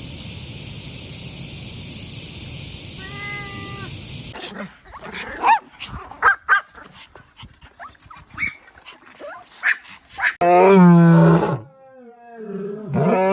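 Steady hiss, then scattered clicks and short sounds, then two loud, drawn-out animal calls near the end, each about a second long.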